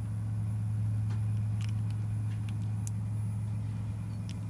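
A steady low mechanical hum, like a running motor or engine, with a few faint light ticks over it.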